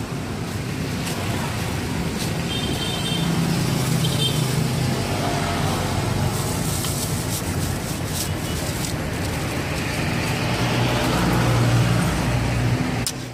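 Road traffic: vehicle engines running past in a steady hum. The hum swells twice, once a few seconds in and louder near the end, with a few scattered clicks and knocks.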